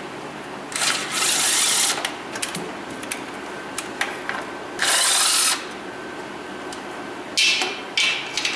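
Cordless impact driver hammering out transmission pan bolts on a 4L60E. There is a burst of about a second near the start and a shorter one about five seconds in, then two brief bursts near the end.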